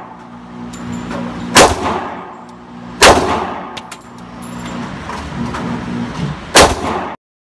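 Three gunshots at a shooting range, the first two about a second and a half apart and the third after a longer pause, each with a short ringing tail. A low steady hum runs between the shots.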